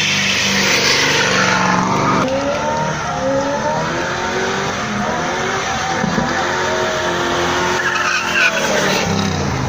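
Third-generation Pontiac Firebird doing a burnout: its engine held at high revs while the spinning rear tyres squeal in a wavering, sliding pitch.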